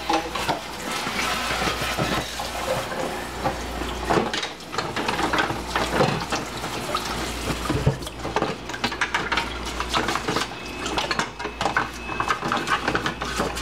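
Kitchen tap running into a stainless steel sink while dishes are rinsed and scrubbed with a bottle brush. Steady running water with frequent clinks and clatters of utensils against a plastic bowl, busier in the second half.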